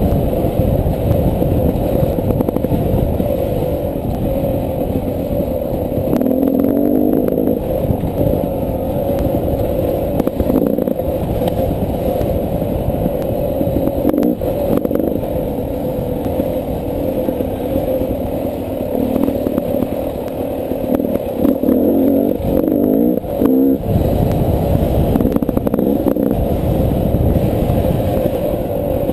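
Beta 300 RR two-stroke dirt bike engine running on a trail, its revs rising and falling with the throttle. The engine sound drops briefly a few seconds before the end.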